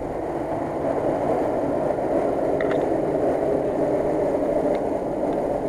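Jeep Wrangler Rubicon engine running steadily as the vehicle crawls slowly over a steep dirt hump, with a few faint clicks about halfway through.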